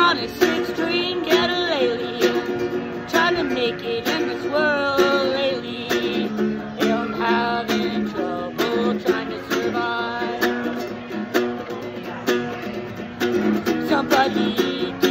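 Small-bodied acoustic guitar strummed in steady chords, with a man singing a melody over it.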